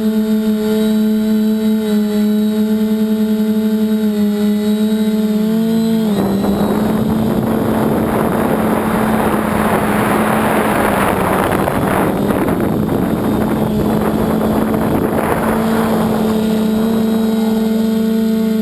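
Multirotor drone's electric motors and propellers humming steadily in flight, the pitch dipping slightly just before a change. About six seconds in, a loud rushing noise covers the hum for about ten seconds, then clears and leaves the steady hum again.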